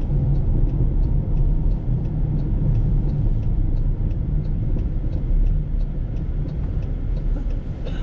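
Car driving slowly on a snow-covered road, heard from inside the cabin: a steady low rumble of engine and tyres, with faint regular ticking about three times a second.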